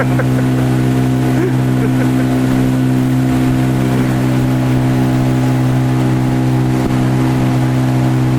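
A motor running at a steady speed, an even, unchanging hum.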